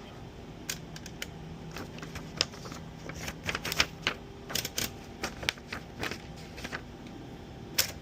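Remington 5 manual typewriter being typed on: a run of irregular sharp clacks as the keys are struck, during a test after its feed rollers were replaced.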